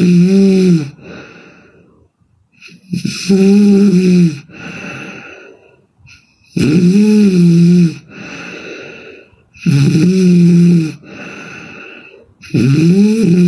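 A woman snoring hard: five loud, pitched snores about three seconds apart, each lasting about a second and trailing off into a softer breath.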